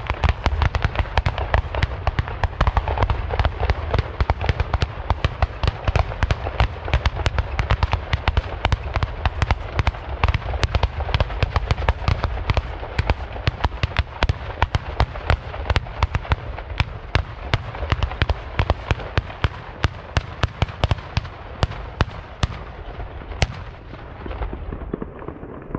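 A rapid rolling salvo of Böller, black-powder salute guns, fired in quick succession. Several sharp reports land each second and run into a continuous rumble. The firing thins out near the end.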